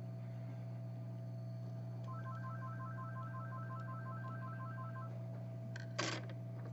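Steady hum of a hot-air rework gun's blower running while it heats the solder joints of a phone charging port. About two seconds in, a rapid run of electronic beeps alternating between two pitches, about five a second, lasts about three seconds. A short hiss comes near the end.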